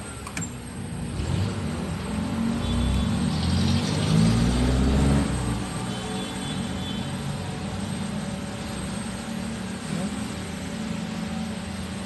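Sharp 800 W microwave oven switched on: a click as the dial is turned, then the steady low hum of the running oven, its fan and high-voltage transformer working after a faulty relay was replaced. The hum is louder for a few seconds near the start, then settles.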